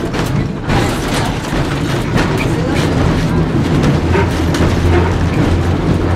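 Vintage electric streetcar, a 1928–29 Porto-built Brill-type car, running along the track, heard from inside its wooden body. A low hum grows louder and steadier about halfway through, over a run of knocks and rattles.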